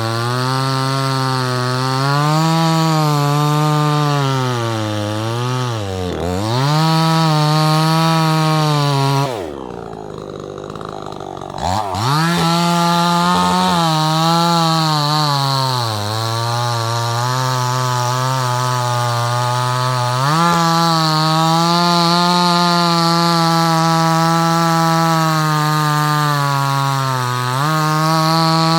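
Budget two-stroke gasoline chainsaw running on fuel treated with Lucas Octane Booster, cutting wood, its engine pitch wavering as the chain loads in the cut. About a third of the way in, the revs fall away and the engine runs low and quieter for about two seconds, then revs back up and carries on cutting.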